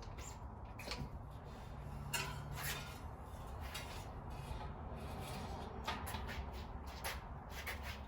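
Scattered clicks, scrapes and rubbing of hands handling a mountain bike wheel and tire, over a low steady hum.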